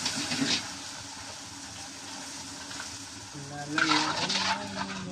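Puris for pani puri deep-frying in a wok of hot oil: a steady sizzle, swelling louder at the start and again about four seconds in as the puris are stirred and turned with a slotted ladle.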